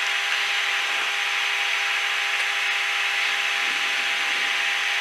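Steady in-flight cockpit noise of a Cessna Citation Encore C560: an even rush of airflow and its turbofan engines, with a faint steady hum and a higher whine held at one pitch.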